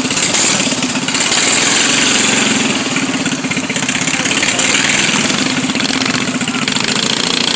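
Single-cylinder racing lawn mower engine running loud and steady, swelling and easing a little.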